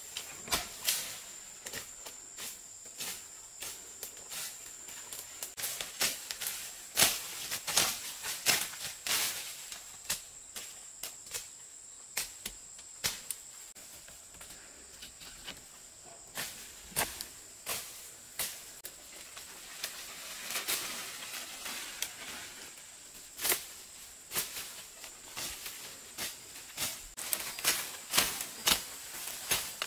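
A steady high-pitched insect drone, with many irregular sharp snaps and knocks of people moving through and cutting rainforest undergrowth.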